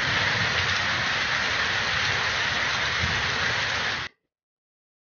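Steady rushing noise with a low rumble underneath, from footage of a burning refinery storage tank; it starts and cuts off abruptly after about four seconds.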